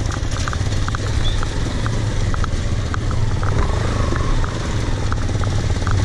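Motorcycle engine running steadily at low speed on a rough dirt track, heard from the rider's seat with a low rumble, and a run of light ticks over it.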